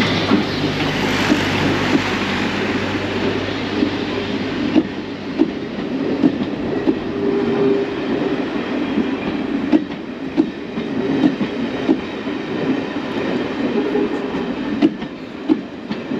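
Heritage steam train passing close by: a dense, hissing rush for the first five seconds or so, then the coaches rolling past with a rumble and irregular clicks of wheels over the rail joints.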